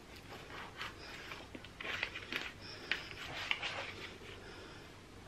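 Kitchen knife sawing through a stack of raw bacon strips on a plastic cutting board: a run of irregular short scraping strokes, busiest about two to four seconds in.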